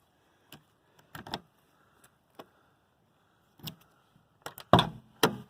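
Key and lock on a Caterpillar excavator's cab door: a run of short, light clicks and rattles, then a louder clunk near the end as the door latch is worked.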